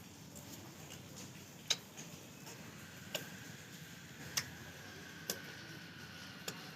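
A few sharp, irregular clicks or taps, roughly one a second, over low room noise, with a faint steady high tone coming in about halfway.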